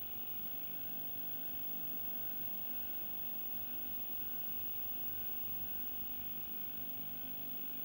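Steady electrical hum and hiss, unchanging, with several steady tones and no other sounds.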